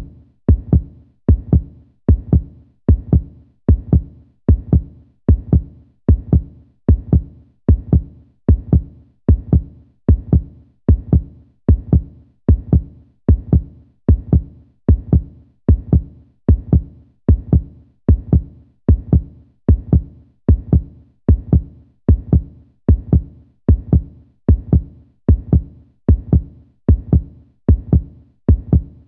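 Human heartbeat sound effect, steady and regular, each beat a pair of low, deep thumps, about one beat a second.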